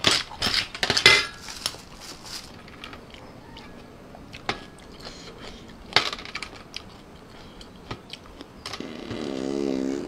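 Metal spoon clinking against blood cockle shells and a metal tray as cockles are scooped from a spicy cockle salad: several sharp clinks in the first two seconds, scattered lighter clicks, and a loud clink about six seconds in. Near the end a man gives a short wavering hummed "mmm".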